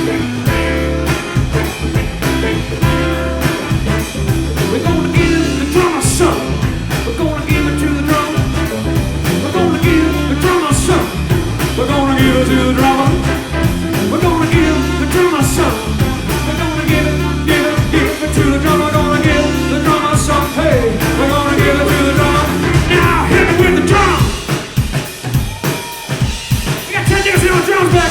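Live funk band playing a groove: drum kit and bass guitar hold a steady beat while a lead melody winds over the top.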